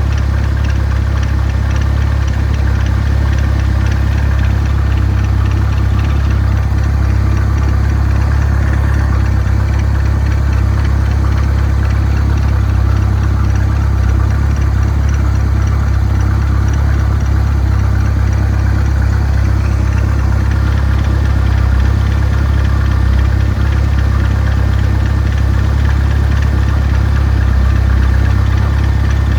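Freshly overhauled 2.3-litre turbocharged engine of a 1927 Ford roadster idling steadily at about 1,000 rpm, running evenly on its first test run after the rebuild.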